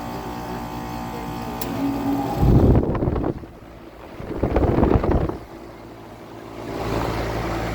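2014 Goodman 4-ton air-conditioner condensing unit running with a steady hum. Two loud gusts of wind noise hit the microphone about two and a half and four and a half seconds in.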